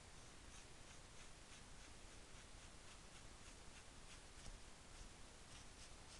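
Faint, short scratches of a pen drawing strokes on T-shirt fabric, about three a second, over a steady low hiss.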